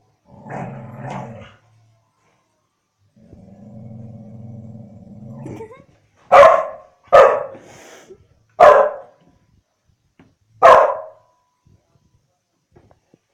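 Dog play-growling during a tug-of-war game: a short rumbling growl, then a longer steady growl, followed by four loud barks spaced one to two seconds apart.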